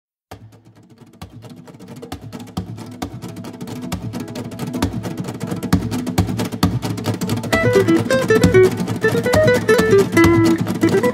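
Background music: fast strummed acoustic guitar, fading in from quiet and growing louder, with a picked melody coming in about two-thirds of the way through.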